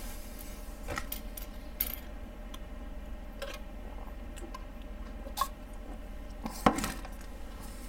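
Scattered light clicks and taps of a plastic model kit's box and packaging being handled and opened, with a sharper knock near the end.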